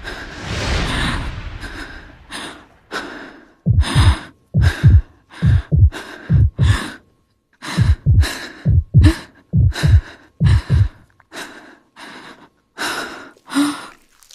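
A frightened person breathing hard: two long, deep gasping breaths, then quick panting breaths nearly two a second, with a low thud paired under many of them in the middle of the stretch.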